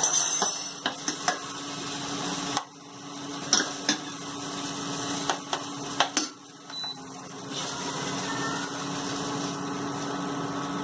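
A spoon scraping and knocking against a pan and plate while cooked upma is served out: a few sharp clicks over a steady low hum.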